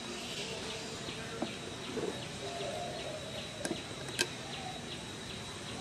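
Outdoor ambience: a steady high insect whine with rapid chirps about four a second, and two sharp clicks a little past the middle.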